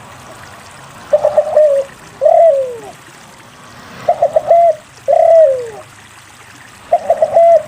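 Spotted dove (derkuku) cooing: a quick stutter of three short notes followed by one long, falling coo. The phrase repeats about every three seconds, twice in full, and a third stutter begins near the end.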